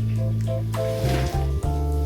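Background music with sustained bass notes and a melody that moves note by note.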